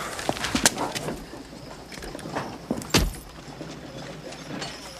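Boot footsteps on wooden floorboards with spurs jingling, and a louder knock about three seconds in.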